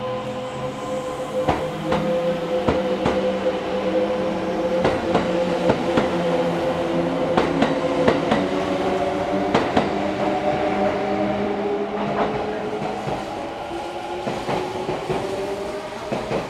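Kintetsu electric train moving through the station: a steady electric motor whine under irregular clacks of the wheels over rail joints. Some of the whine's tones rise in pitch near the end.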